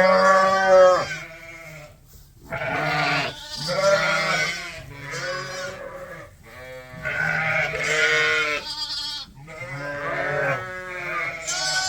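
Sheep bleating again and again: about seven quavering calls, each under a second long, some overlapping.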